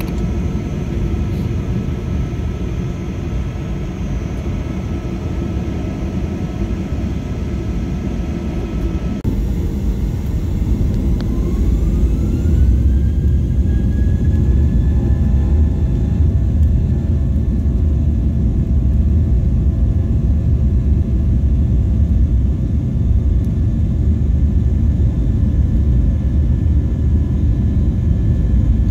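Jet airliner engines running with a steady low rumble. About eleven seconds in, a whine rises in pitch and then holds, and the rumble grows louder as the engines spool up.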